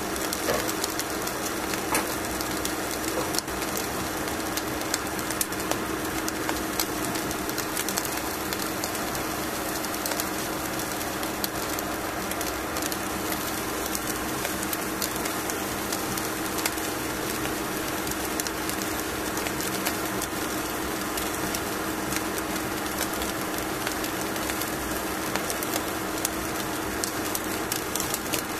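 Salmon fillet cooking on a foil sheet in a pan: a steady sizzle with many small crackles and pops, over a steady low hum.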